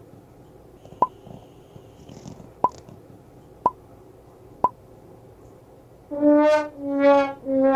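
Edited-in sound effects: four short pops about a second apart as caption words pop up, then about six seconds in a brass 'wah-wah' comedy sting starts, three notes each a little lower than the last.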